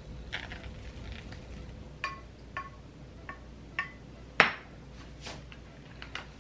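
Kitchenware clinking as a rice bowl is dressed: a few light, ringing clinks of the same pitch, then a sharper, louder knock about four and a half seconds in, followed by soft scrapes and taps.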